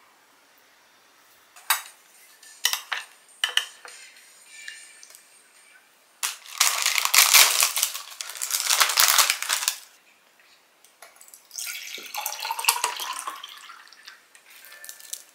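A few light clinks of dishes and cutlery, then a plastic wrapper crinkling loudly for about three seconds as a packet of seasoned laver is torn open. Near the end, grape juice glugs from a carton into a glass, with a rising tone as it pours.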